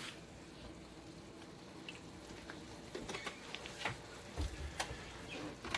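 Quiet cookware handling at the stove: a few light clicks and taps and a soft low thump about four and a half seconds in, over a faint steady hiss.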